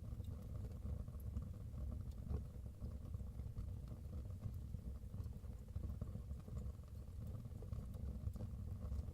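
Wood fire burning in a fireplace: a steady low rumble of the flames with scattered faint crackles and pops.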